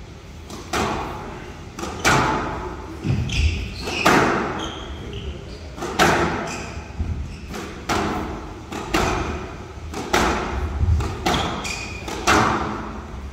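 Squash ball being struck by rackets and smacking off the walls in a fast rally: a sharp crack or thud about once a second, each ringing out in a large echoing hall. Brief high squeaks of court shoes come between the shots.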